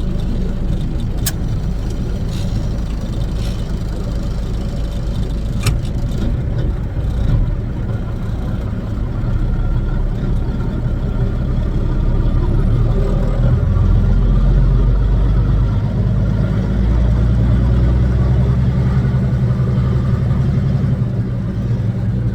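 Kenworth W900's Caterpillar diesel engine heard from inside the cab while driving: a steady low drone whose pitch and loudness rise somewhat around the middle, with two sharp clicks in the first six seconds.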